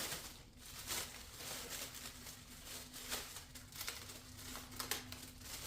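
Unpacking and handling noises: packaging rustling with scattered light clicks and knocks as accessories are lifted out of a box.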